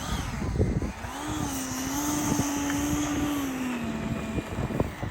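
90 mm Wemotec electric ducted fan of an RC model L-39 Albatros jet whining steadily in flight, its pitch dropping a little about four seconds in. Heavy wind buffets the microphone with low rumbling gusts.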